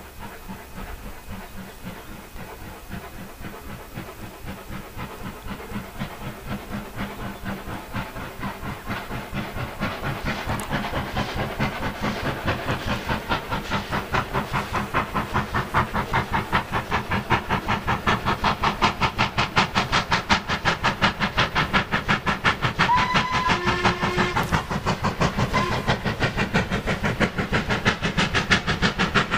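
Stanier 8F 2-8-0 steam locomotive approaching with a train, its regular exhaust beats growing steadily louder. About three-quarters of the way through, its whistle sounds twice, a longer blast then a short one.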